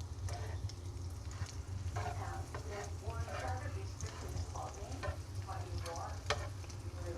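Food frying in a pan and being stirred, with sharp clicks of a utensil against the pan over a steady low hum.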